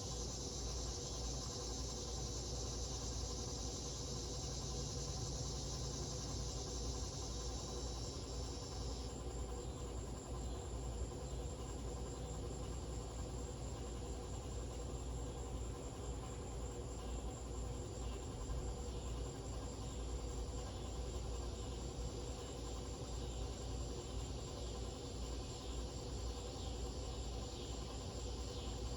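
Harbor Breeze Lakeside II ceiling fan running slowly on a failing capacitor, with a steady low hum, and a high chirring sound over it that drops off about nine seconds in.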